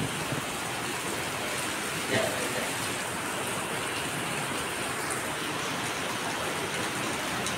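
Steady rain falling on wet paving and puddles, an even hiss throughout, with one brief louder sound about two seconds in.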